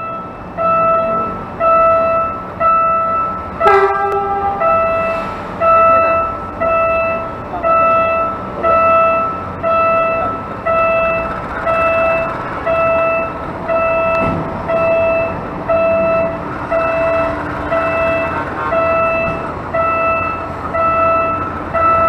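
Level-crossing warning alarm ringing in a steady on-off pattern, about four rings every three seconds, as a train approaches the crossing. A short horn toot about four seconds in.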